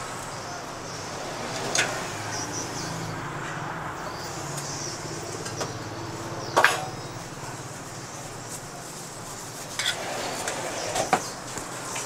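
Metal cooking utensils clanking against the pans of a charcoal-fired ban chang kuih (peanut pancake) stall: a few sharp clanks, the loudest about halfway through, over steady background noise.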